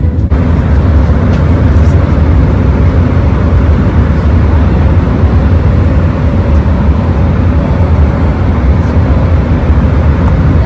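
Steady low rumble of a road vehicle in motion, starting and stopping abruptly with the edit.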